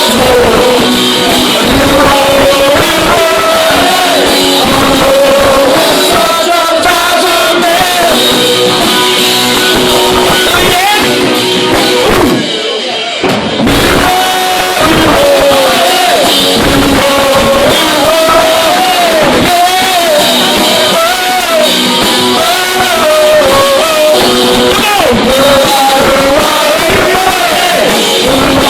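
Punk rock song: a voice singing over electric guitars and a drum kit, with a brief break about twelve seconds in.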